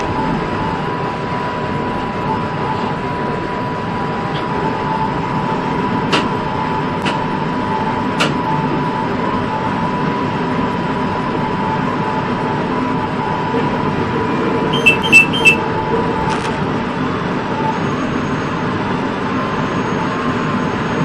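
Commuter train running steadily at speed, heard from the front cab: a constant rumble and rail noise with a steady whine. A few sharp clicks sound about six to eight seconds in, and a quick run of three sharp ringing clicks comes about two-thirds of the way through.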